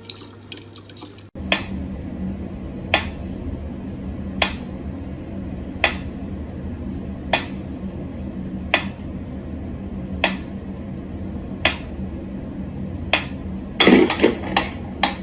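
Water dripping into a sink, one sharp drop about every second and a half, over a steady low hiss and hum. A brief louder burst near the end.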